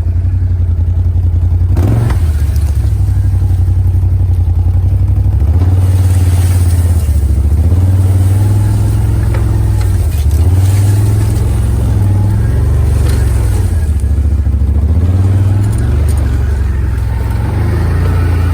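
ATV engine running under load as it skids a log, its speed rising and falling with the throttle. There is a single knock about two seconds in.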